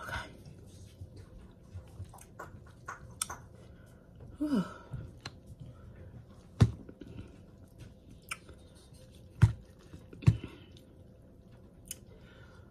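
Close-up mouth sounds of someone chewing spicy noodles: many small wet clicks, with three louder sharp smacks or clicks in the second half.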